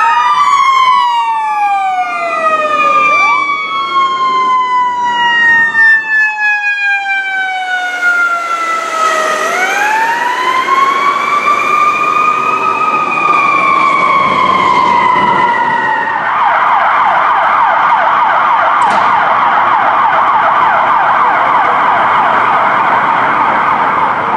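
Fire apparatus sirens on an emergency response. A siren slowly winds down over several seconds and then winds back up, with other wailing sirens overlapping. About two-thirds of the way in, a fast electronic yelp takes over.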